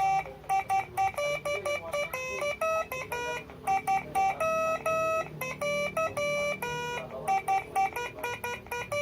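Telolet horns, a six-trumpet electric horn set driven by a telolet module, playing a tune: a quick run of short notes with some held ones, stepping between a handful of fixed pitches.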